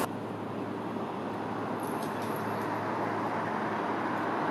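Steady road noise of a moving vehicle, an even rumble and hiss with a faint low hum.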